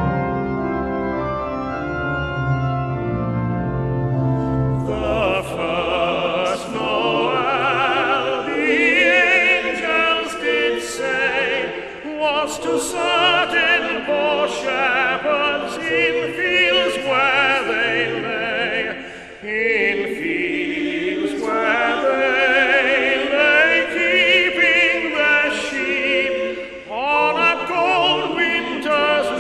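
A tenor soloist singing in operatic style with a wide vibrato, backed by a choir of boys and men and held accompaniment chords. The chords play alone for the first few seconds before the voice comes in.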